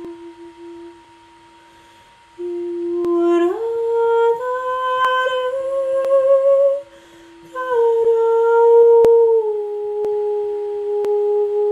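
A woman's voice humming long held notes over the steady ring of a singing bowl. The hum starts on the bowl's pitch a couple of seconds in, slides up to a higher held note, breaks off briefly in the middle, then comes back and steps down to a lower note near the end.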